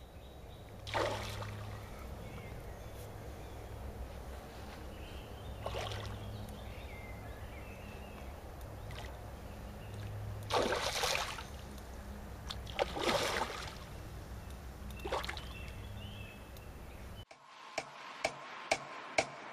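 Carp splashing at the surface of a pond: five separate splashes a few seconds apart over a steady low hum. Electronic music with a ticking beat starts near the end.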